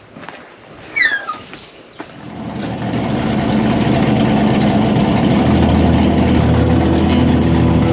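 A brief high squeak that falls in pitch about a second in, then an engine-like running sound that swells over about two seconds and holds steady and loud.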